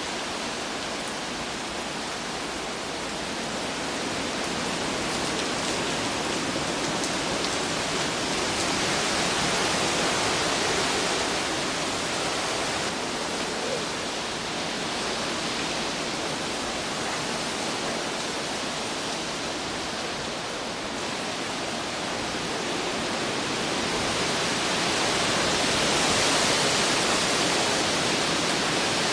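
Hurricane wind and rain: a steady rushing hiss that swells in gusts, louder around ten seconds in and again near the end.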